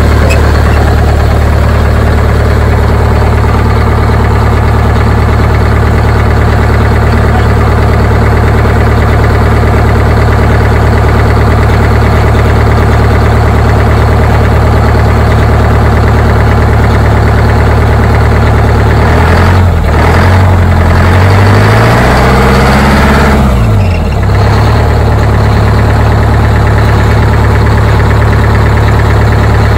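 Detroit Diesel two-stroke bus engine idling steadily in the open rear engine bay. About twenty seconds in it is revved up briefly, then settles back to idle.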